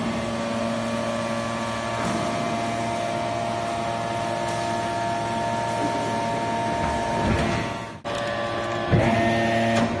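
YD1350 hydraulic scrap metal baler's power unit running: a steady hum and whine from the electric motor and hydraulic pump, holding several steady tones. It swells louder twice near the end as the press works, with a sudden drop about eight seconds in.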